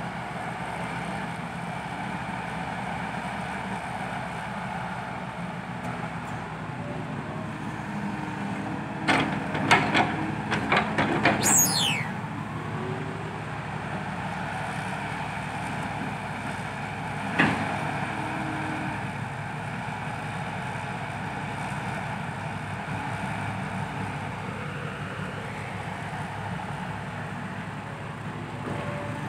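Heavy diesel engines running steadily, with a quick series of sharp clanks about nine to twelve seconds in that ends in a brief hiss falling in pitch, and a single clank near eighteen seconds.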